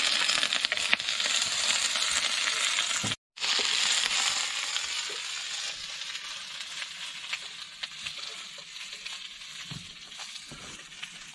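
Food sizzling and crackling in a hot pan. The sizzle breaks off briefly about three seconds in, then resumes and slowly fades.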